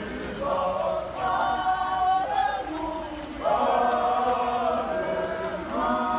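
A rugby team singing together in chorus, many voices holding long notes in phrases, with a short break about three seconds in.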